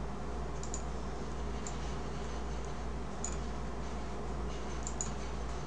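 A few light computer-mouse clicks, some in quick pairs, over a steady low electrical hum.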